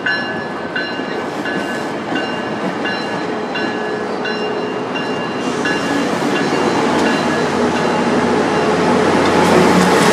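Tri-Rail bi-level commuter coaches rolling past close by as the train pulls out, a steady rolling rumble and rush that grows louder toward the end as the diesel locomotive at the rear draws near. A bell-like ding repeats about every 0.7 s through the first half and fades out.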